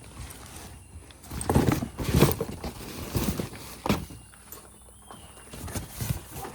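Rummaging through a box of stored goods: rustling and knocking of objects being handled and moved, loudest about two seconds in, with a sharp knock near four seconds.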